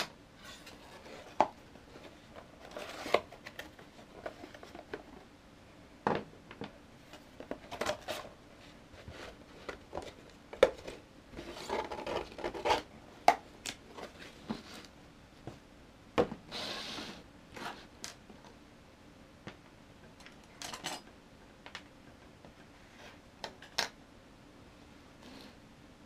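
Unboxing by hand: cardboard box and plastic packaging rustling, with scattered clicks and knocks as the charger, its cables and small parts are handled and set down on the desk.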